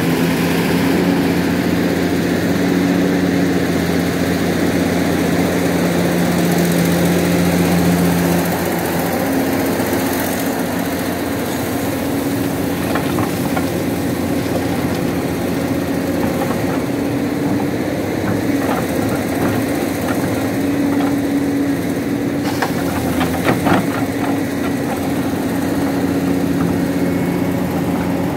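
Heavy diesel engines running at a steady hum as an excavator loads a truck, the hum easing lower about eight seconds in. Over it, iron ore rattles and clatters as it pours from the excavator bucket into the steel trailer, in scattered knocks with a burst about two-thirds of the way through.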